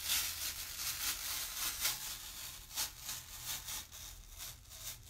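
Chalk Couture adhesive silkscreen transfer being peeled off a chalkboard, a crinkly crackling with a few sharper snaps that thins out near the end.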